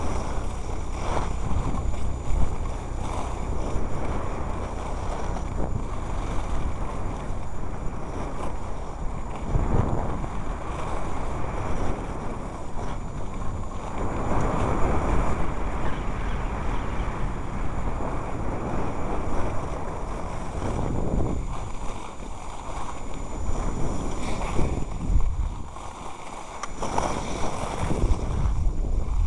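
Wind buffeting the camera microphone during a downhill ski run, mixed with the hiss of sliding over snow, swelling and easing in waves and dropping briefly near the end.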